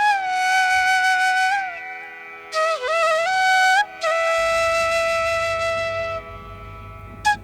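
Background music: a solo flute melody with sliding, ornamented notes in phrases over a steady drone. A low pulsing bass enters a little past halfway.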